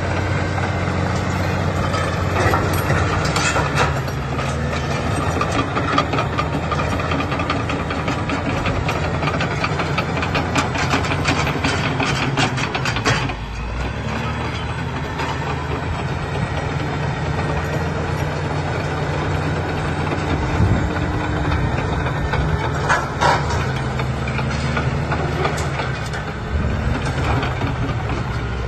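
Caterpillar D6R crawler dozer's diesel engine running steadily under load while it pushes rock with its blade. Over it come clanking steel tracks and knocking, scraping rock, heaviest about ten to thirteen seconds in and again around twenty-three seconds.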